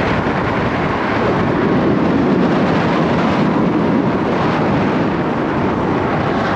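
Wind rushing and buffeting over a microphone worn by a cyclist riding on a gusty day: a loud, steady rumbling noise.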